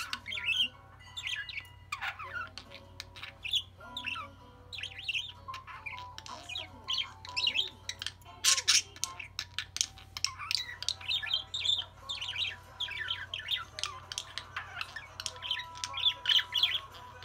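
Budgerigars chattering and warbling: a rapid, unbroken run of chirps, clicks and squawks, with one loud squawk about eight and a half seconds in.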